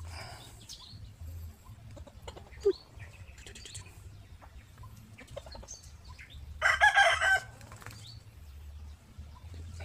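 A loud animal cry lasting under a second, about seven seconds in, with a sharp short squeak earlier and fainter squeaks and soft rustling around them.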